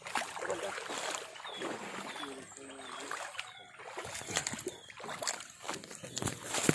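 Splashing and running water in a shallow stream, uneven, with many short splashes. Faint voices in the background.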